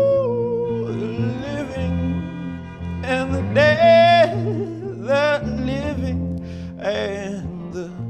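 Electric guitar played through a small combo amp, with a man's voice singing long wordless notes over it. The notes waver in pitch and come in several separate phrases.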